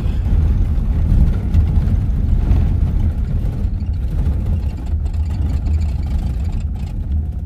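Steady low rumble of engine and road noise inside a moving vehicle driving at speed.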